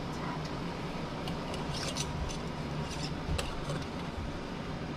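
Metal screw bands being twisted onto glass canning jars: a few light scraping clicks of the threads in the middle, over a steady low hum.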